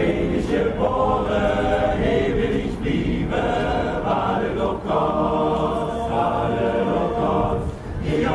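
Male a cappella choir singing in several voice parts, holding chords in phrases of about a second.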